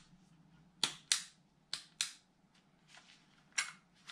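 Metal slide of an Umarex Glock 17 Gen5 green-gas airsoft pistol clacking as it is worked back and forth during takedown: two pairs of sharp clicks, then a single click near the end. The slide keeps locking and the takedown is not going through.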